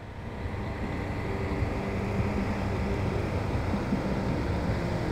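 Steady low rumble of outdoor background noise, growing louder over the first couple of seconds and then holding level.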